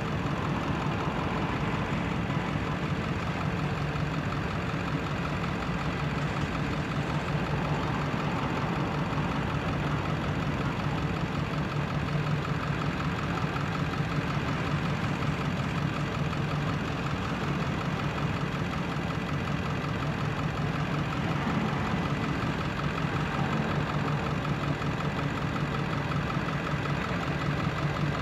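Diesel locomotive engines running with a steady drone as a slow double-stack freight train rolls by.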